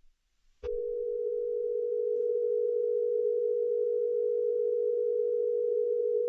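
A click, then a steady electronic tone begins about half a second in and holds at one pitch without change, like a dial tone: the drone laid under an Emergency Alert System-style broadcast.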